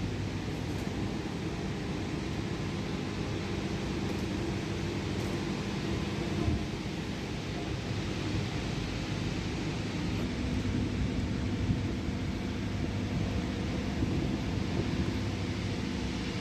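Hydraulic static pile driver's engine and hydraulic power unit running, a steady mechanical hum with a couple of faint knocks.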